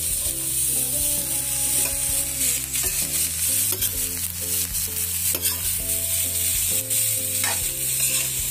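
Shredded cabbage and carrots sizzling in a hot pan while a metal spatula stirs and tosses them, with scattered clicks and scrapes of the spatula on the pan. Low steady tones that change pitch in steps run underneath.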